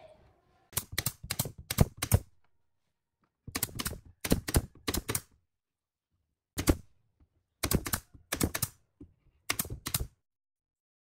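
Pneumatic nail gun firing nails into wooden slats: sharp cracks in quick runs of several shots, with short pauses between the runs.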